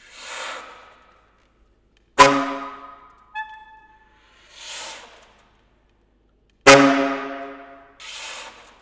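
Saxophone playing sparse contemporary music: soft breathy swells of air through the horn alternate with two sharply attacked, very loud low notes that ring and die away over about a second, with one brief high note between them.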